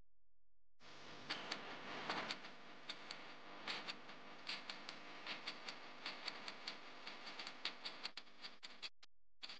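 Countdown-timer ticking sound effect: sharp ticks a few times a second over a light hiss, starting about a second in, the hiss dropping out near the end while the ticks go on.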